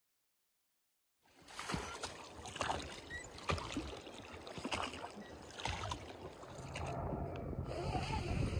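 Silent for about the first second, then water washing and lapping against an inflatable raft out on a river, with several sharp knocks. Near the end a low, steady engine drone of a small plane comes in and grows louder.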